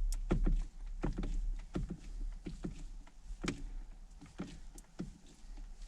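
Irregular clicks and knocks, about a dozen in a few seconds, of a hand tool working at the steering wheel, loosening the Torx bolts that hold the airbag, over a steady low hum.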